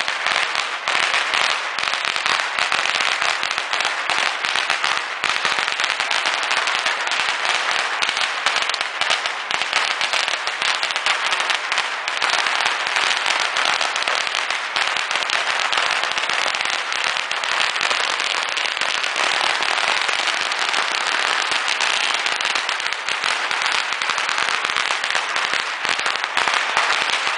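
Firecrackers going off in a dense, unbroken rapid crackle of sharp bangs, keeping the same pace throughout.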